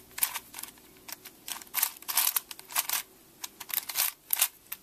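Crazy 3x3x3 Plus Venus puzzle cube being turned by hand through a quick series of layer and slice turns, each turn a short clicking rattle of plastic pieces.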